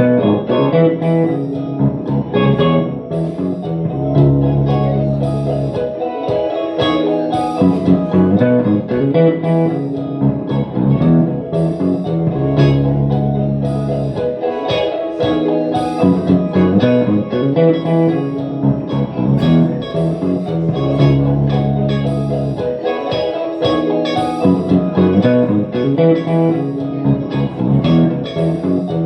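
Electric guitar playing chords over held low bass notes, with a steady pattern of short high ticks.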